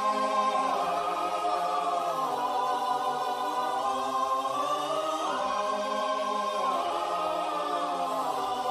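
A choir singing sustained, wordless chords, the harmony moving to new chords a few times, a meme sound effect.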